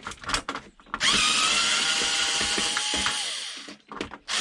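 Power drill-driver running for about two and a half seconds: a whine that rises as it spins up, holds steady, then winds down. It is preceded and followed by a few sharp clicks of parts and tool handling.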